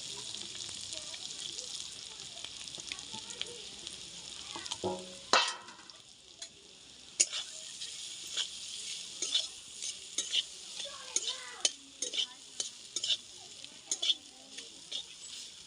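Spiced potato filling for samosas sizzling in hot oil in a pan, then stirred with a spatula: after a loud knock about five seconds in, the spatula scrapes and knocks against the pan about once or twice a second while the sizzle quietens.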